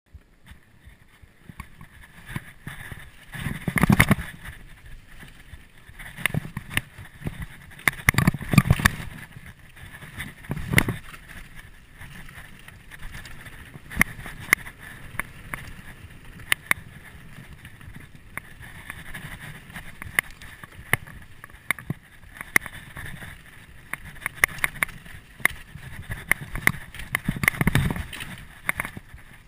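2011 Canyon Nerve AM 7 full-suspension mountain bike descending a rough dirt trail at speed: a constant bed of tyre and trail noise with frequent rattling clicks and knocks from the bike. There are louder, heavier surges about 4, 8, 11 and 28 seconds in.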